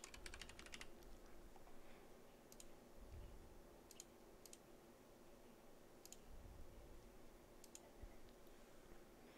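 Faint computer keyboard typing in a quick burst during the first second, then about six single mouse clicks spaced a second or more apart, over a faint steady room hum.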